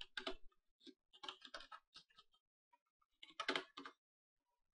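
Faint typing on a computer keyboard: quick runs of keystrokes in a few short bursts with pauses between them.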